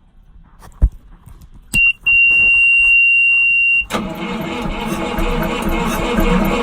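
A single thump, then a steady high-pitched beep for about two seconds. Then, about four seconds in, a Perkins diesel engine starts being turned over by its new starter motor and keeps cranking without firing, on batteries the owner calls weak.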